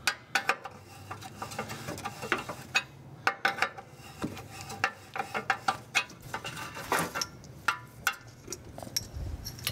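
Irregular sharp metallic clicks and clinks of a wrench and an oxygen-sensor socket on a front oxygen sensor. The sensor is being worked back and forth to get penetrating oil into its threads and loosen it from the exhaust pipe.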